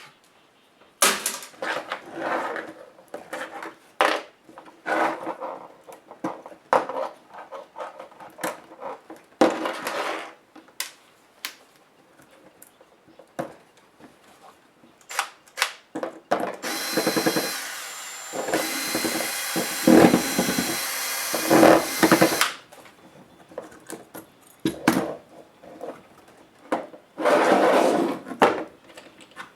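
Hands taking apart a Compaq F700 laptop: repeated clicks and rattles of plastic case parts and small tools. About two-thirds of the way in there is a continuous noise of about six seconds with a faint steady whine running through it.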